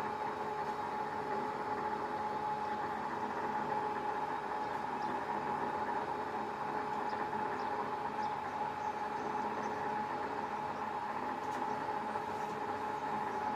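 Crane winch motor running steadily as it lowers a speedboat, a constant mechanical hum with a steady high whine.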